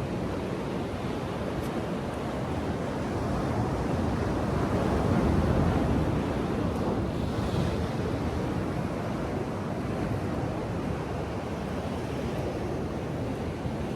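Ocean surf washing onto a beach, with wind buffeting the microphone; the surf swells louder about five seconds in, then eases.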